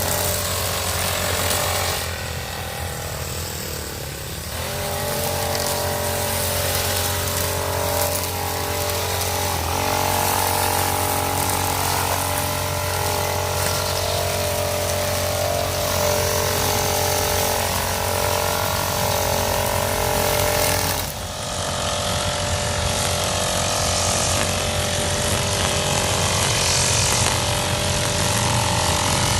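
Krisbow brush cutter's small engine running steadily while its nylon line head cuts grass, easing briefly a few seconds in.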